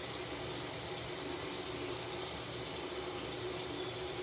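Steady rushing noise with a faint hum under it, even and unbroken.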